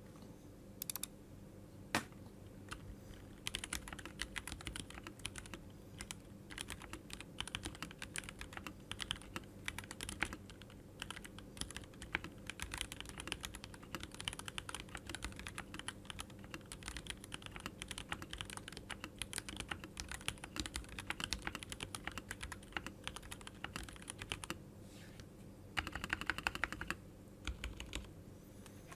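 Typing on a keyboard: a long run of quick, irregular key clicks, with a denser flurry of clicks near the end.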